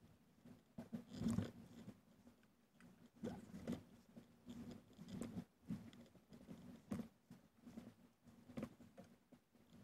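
Faint, muffled, irregular knocks and clicks from the wooden sailing skiff and its rigging as people move about in the boat, a few a second, with louder knocks about a second in and near the middle.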